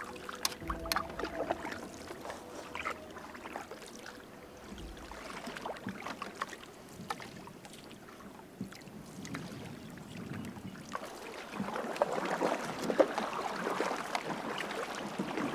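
Canoe paddle strokes in the water: paddles dipping and pulling with small splashes and drips. The water gets louder and rushes more in the last few seconds.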